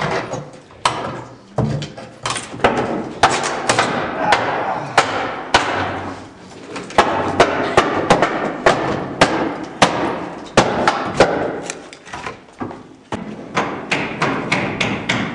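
Wooden stage flooring being torn up: boards knocking and thudding against each other as they are pried loose and stacked, in irregular sharp knocks, at times several a second.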